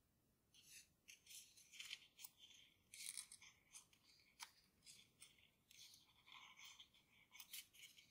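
Faint, irregular crinkling and rustling of a folded sheet of Grainy origami paper, squeezed and rubbed between the fingers as the model is shaped.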